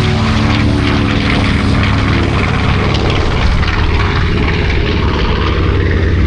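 Twin Wright R-2600 radial engines of a B-25 Mitchell (PBJ) in flight, a loud steady propeller drone whose pitch sinks slightly over the first few seconds as it passes.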